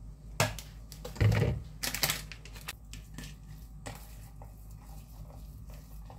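Hands kneading minced beef marinade in a stainless steel bowl: a few knocks and clatter in the first two seconds, then soft squishing with small irregular taps of fingers and meat against the metal bowl.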